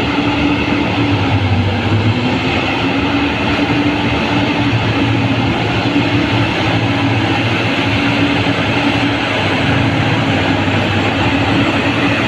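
Large hydraulic mining excavator's diesel engine running steadily under load, a loud drone that dips briefly in pitch about two seconds in before recovering.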